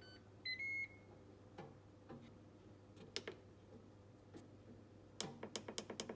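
Ninja Foodi control panel giving a short electronic beep as the timer is set for a few more minutes, followed by a few faint clicks. About five seconds in, a rapid, even ticking starts, about five strokes a second.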